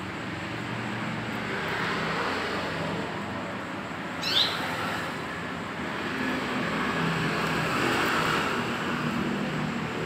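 Steady road-traffic noise with a low engine hum, and one short bird chirp about four seconds in.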